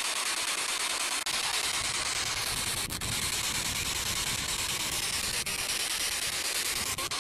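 P-SB7 Spirit Box scanning the radio band: steady static hiss with a few brief dropouts.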